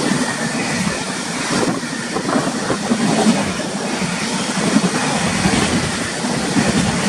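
Express passenger train passing at about 120 km/h: a steady, loud noise of wheels on rail with no horn.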